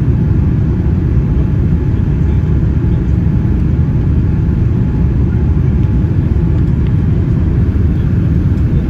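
Steady low rumble of engine and airflow noise heard inside the cabin of a Boeing 787-9 climbing after takeoff.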